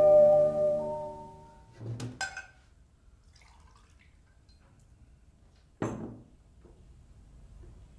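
Background music fading out, then glass clinking twice and water poured faintly from a glass jug into a drinking glass, with a single knock about six seconds in.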